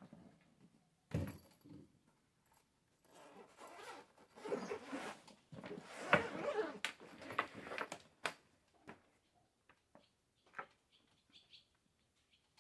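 A zippered fabric chainsaw carrying bag being unzipped and opened: several seconds of scratchy zipper and fabric rustling in the middle, with a few sharp clicks and knocks as the bag and saw are handled.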